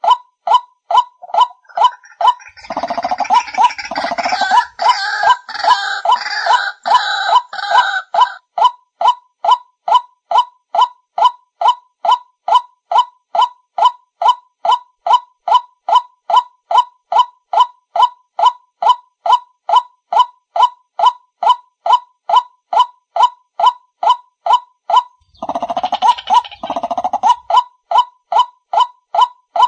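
White-breasted waterhen calls: a short hooked 'kru-ak' repeated monotonously about two to three times a second. A denser burst of harsher, overlapping calls joins in from about two and a half to eight seconds, and again briefly near the end.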